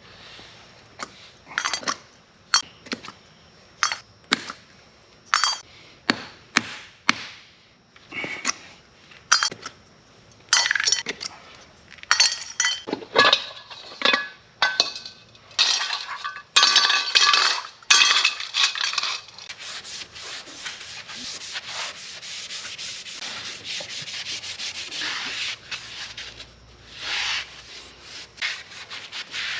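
Hand sanding, scuffing parts ready for paint: short, separate rubbing strokes, turning into steadier continuous rubbing about two-thirds of the way through.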